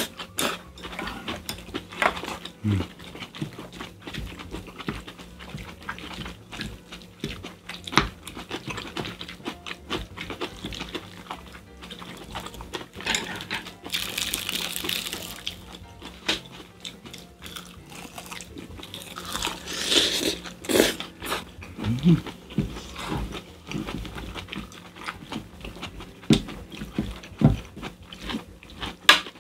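Close-up eating sounds: metal spoons and chopsticks clinking and scraping against glass bowls, with chewing and slurping of spicy stir-fried squid and rice, as a run of many short clicks and knocks under a faint steady hum.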